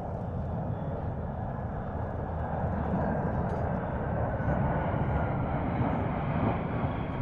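Military fixed-wing aircraft flying past overhead in the parade flypast. The engine noise slowly grows louder, with a faint whine falling in pitch partway through.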